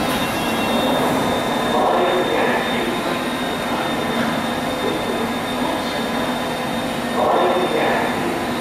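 London Underground D Stock train at a platform, its equipment giving a steady hum over an even rushing noise, with brief louder sounds at about two seconds and again near the end.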